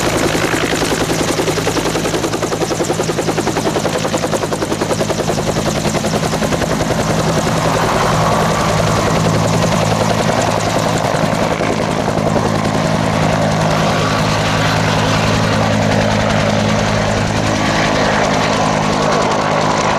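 Bell UH-1H Iroquois 'Huey' helicopter flying, its two-bladed main rotor beating rapidly and evenly over a steady turbine engine hum. From about eight seconds in, a higher turbine whine comes up more strongly.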